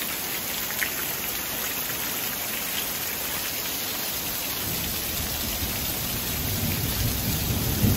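Heavy rain pouring down steadily, an even dense hiss. About halfway through, a low rumble builds underneath it, and a short knock sounds near the end.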